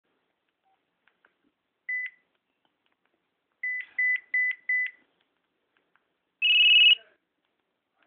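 LG enV3 (VX9200) phone speaker playing its "Low Beeps" ringtone: a single short beep, then four quick beeps at one pitch. About six and a half seconds in comes one louder, higher beep of about half a second.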